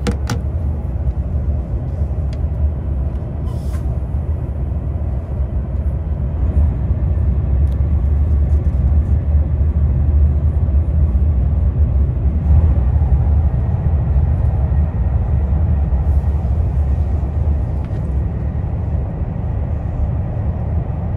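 Steady low rumble of a KTX high-speed train running, heard from inside the passenger cabin.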